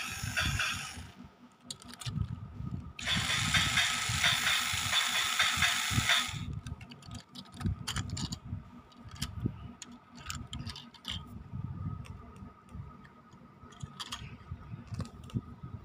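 Gears of a model locomotive whirring and rattling as its wheels turn. There is a short burst at the start and a longer burst of about three seconds from about 3 s in. Scattered plastic clicks and knocks from the model being handled follow.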